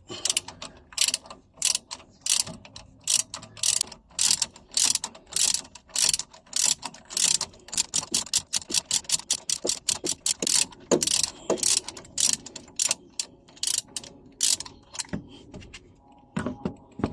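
Ratchet wrench clicking in repeated short strokes, about two to three runs of clicks a second, as a fastener on the brake caliper is worked.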